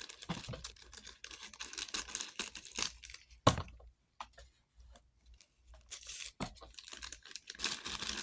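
A snack bag being torn open and rustled, with dense crinkling, one sharp snap about three and a half seconds in, then more crinkling near the end.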